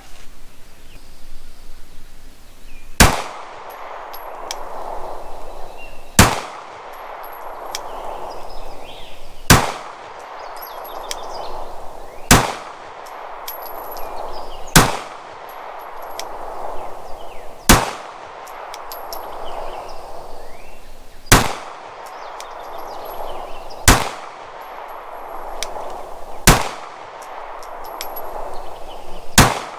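Glock 26 9mm pistol firing ten single shots in slow, aimed fire, about one every three seconds.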